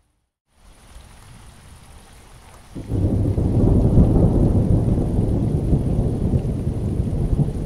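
Rain falling on wet paving, after half a second of silence at the start. About three seconds in, a loud, low thunder rumble starts suddenly over the rain and carries on.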